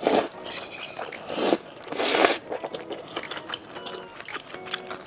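A person slurps noodles in sticky malatang broth off a spoon: three loud sucks in the first two and a half seconds, then chewing with many small clicking mouth sounds.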